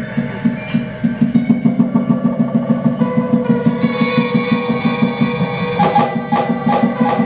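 Live experimental music: a fast, even percussive pulse of several strokes a second under steady ringing tones, with a few sharper strikes about six seconds in.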